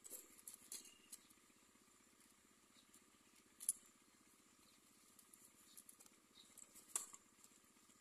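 Near silence with a few faint, sharp clicks and rustles of the nest's dry twigs, the loudest just before halfway, as an adult myna lands at the nest and moves on it.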